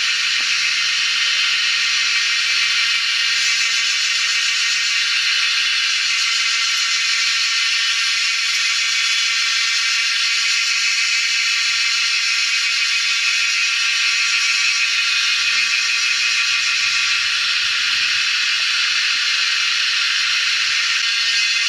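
A steady, loud hiss.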